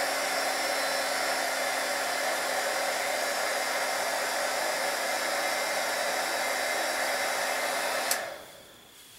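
Handheld heat gun blowing hot air steadily to melt crayon wax on the piece, with a faint steady whine. It is switched off with a click about eight seconds in and winds down quickly.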